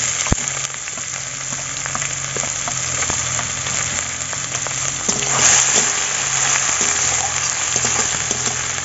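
Sliced onions and green chillies sizzling as they fry in hot oil in a wok, with a metal spatula clicking and scraping as they are stirred. The sizzle swells louder about five and a half seconds in.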